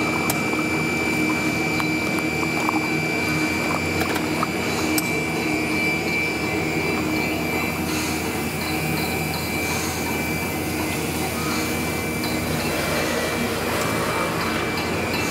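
PP drinking-straw extrusion line running: a steady mechanical hum with a constant high whine, mixed with water running in the straws' cooling tank.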